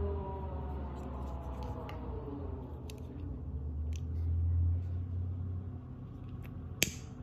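Faint handling clicks of a plastic disposable lighter and a cable over a low hum that fades about five seconds in, then one sharp click near the end with a short hiss after it, typical of the lighter being struck.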